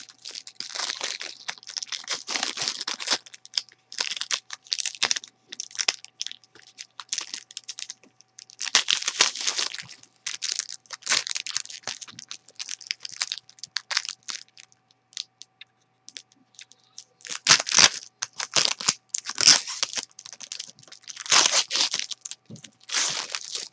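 Foil trading-card pack wrappers crinkling and tearing under the hands in irregular bursts, with a short lull and then the loudest crackling about three quarters of the way through.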